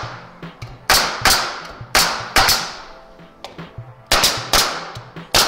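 Pneumatic finish nailer firing nails through a door jamb and its shims into the framing: about seven sharp shots, mostly in quick pairs, each followed by a short ring. This is the hinge side of a pre-hung door being secured.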